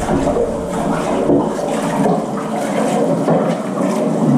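Water rushing and gurgling steadily, drawn through the filter of a just-repaired appliance now that it sucks again.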